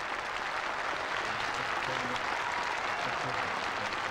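A very large open-air crowd clapping: dense, steady applause that swells a little in the first second and then holds.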